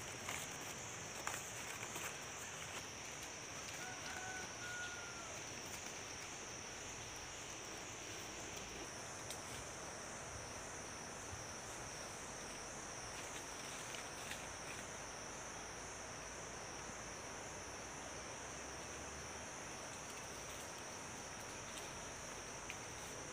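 Steady, high-pitched drone of insects with a regular pulsing beat, over light rustling and crackling of dry palm fronds in the first couple of seconds.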